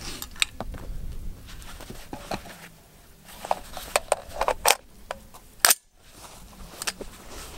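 Metallic clicks and rattles of an AR-10 rifle being handled to clear a stovepipe jam, as the magazine and action are worked. There is one sharp metal clack about six seconds in, and wind rumbles on the microphone at first.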